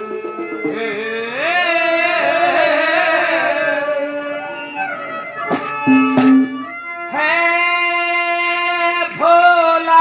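Male voice singing a ragni (folk devotional song) into a microphone over instrumental accompaniment, with long held, wavering notes. There is a brief cluster of sharp drum strokes a little past the middle.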